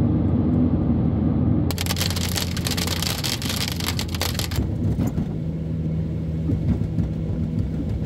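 Road noise inside a moving car: a steady low engine and tyre rumble with a hum. From about two to four and a half seconds in, a louder hiss with crackle comes over it.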